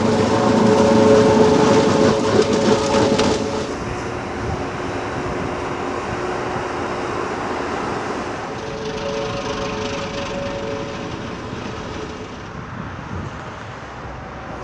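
Heavy construction machines at work, their diesel engines running in a steady mechanical din. The sound is loudest in the first few seconds and shifts in character about 3.5 and 8.5 seconds in.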